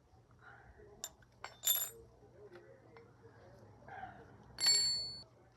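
Metal hand tools clinking against a motorcycle's rear-wheel chain adjuster on the swing arm while the chain tension is set. There are a few light clicks, a ringing clink about a second and a half in, and a louder ringing clink near the end.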